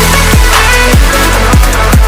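Background electronic dance music with heavy kick drums falling in pitch about every 0.6 seconds over a deep bass line.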